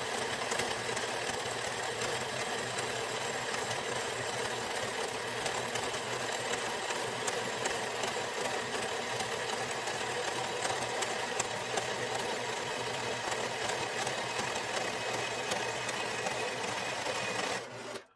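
Horizontal metal-cutting bandsaw running steadily, its blade cutting down through steel plate. The sound cuts off near the end as the cut finishes.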